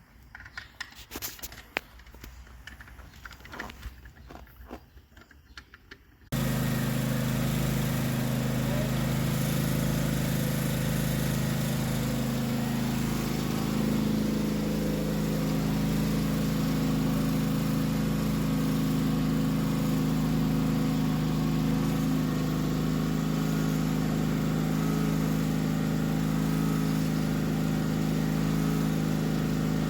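Garden tractor engine running steadily at a constant speed. It starts abruptly about six seconds in, after a few seconds of light taps and knocks.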